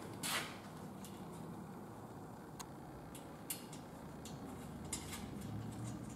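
Small metal clicks and ticks as short bolts are handled and fitted by hand into the square steel tubing of a ladder tree stand: one sharp tap just after the start, then a few faint, scattered ticks over a low steady hum.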